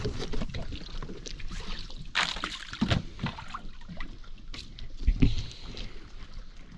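Lake water sloshing and splashing around a boat, with irregular louder splashes about two, three and five seconds in.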